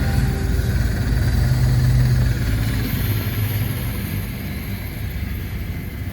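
Helicopter running with a low steady drone of engine and rotor, growing gradually quieter through the second half.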